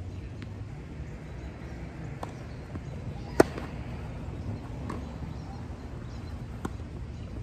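Tennis rally: rackets striking the ball back and forth. A sharp, loud pop from a close racket hit comes about halfway through and another near the end, with fainter pops of hits and bounces from the far side of the court between them.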